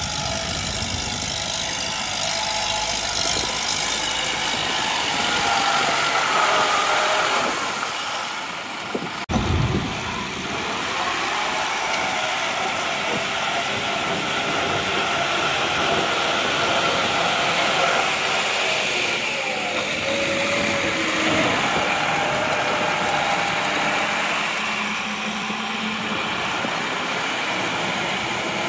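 Diesel farm tractor engines running steadily under load as they pull disc plows through flooded paddy mud, the engine pitch drifting up and down. About nine seconds in the sound breaks off sharply for a moment, then the engine drone carries on.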